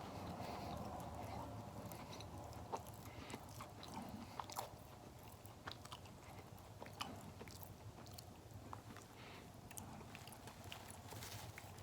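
Someone chewing a toasted Pop-Tart close to the microphone: soft crunching with scattered small mouth clicks.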